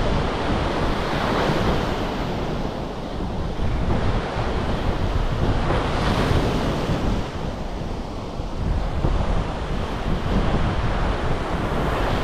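Sea surf breaking and washing up the beach, swelling every few seconds, with wind noise buffeting the microphone.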